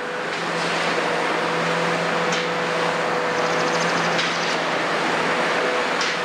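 Steady diesel engine noise from a Kobelco 350 excavator working and a loaded tipper truck pulling away, with a few short knocks and a brief rapid ticking.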